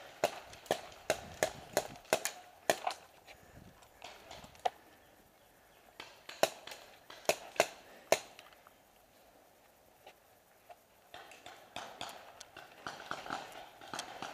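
Paintball markers firing: sharp pops, irregular, a quick run of about eight shots at first and another handful a few seconds later, then fewer and fainter. Near the end comes a steadier rustle with small ticks.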